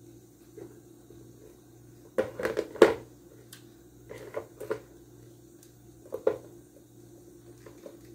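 Hard plastic parts clicking and knocking as a hot glue gun and a plastic turntable base are handled. The sounds come in a few short clusters about two, four and six seconds in, the loudest a sharp knock near three seconds, over a faint steady hum.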